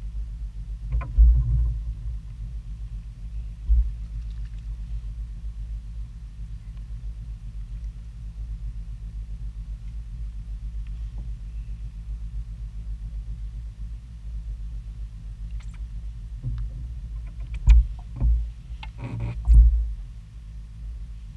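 Steady low rumble, with a few sharp thumps and knocks on the boat: one about a second in, one near four seconds, and a cluster near the end.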